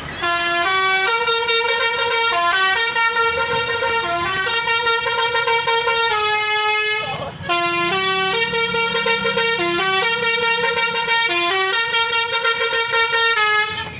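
Tourist bus's 'telolet' musical air horn playing a loud tune: a run of stepping horn notes in two long phrases, with a short break in the middle.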